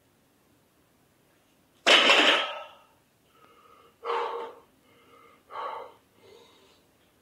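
A loud, sudden noise about two seconds in, followed by a few heavy, gasping breaths from a lifter winded after a two-rep 180 kg sumo deadlift.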